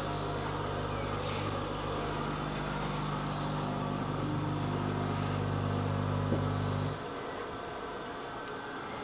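Necta Krea coffee vending machine brewing a drink with a steady hum, which cuts off suddenly about seven seconds in. A high beep follows for about a second, signalling that the drink is ready.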